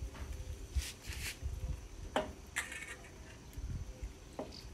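Basting brush dabbing and swishing in a small stainless-steel saucepan of barbecue sauce, with two light metallic clicks of the brush against the pan, over a low steady rumble.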